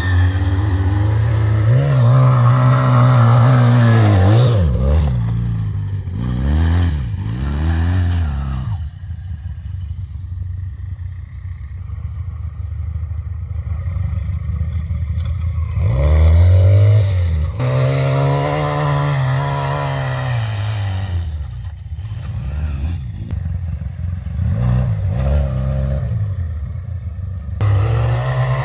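ATV (quad bike) engines revving up and easing off again and again while riding. The pitch rises and falls repeatedly, louder in the first few seconds, around the middle and at the end, with quieter stretches between.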